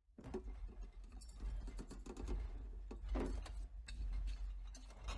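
Irregular rattling and clicking of loose objects over a steady low rumble, as a building shakes in an earthquake.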